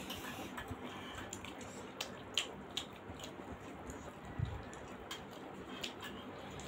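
Close-up eating sounds: scattered wet mouth smacks and chewing clicks as steamed momo dumplings are chewed and handled by fingers, a few of them louder, over a faint steady hiss.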